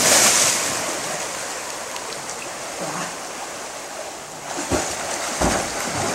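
Splash of a jumper plunging into a river pool, its hiss fading over the first second into the steady rush of flowing river water. More splashing and a few dull thumps come near the end.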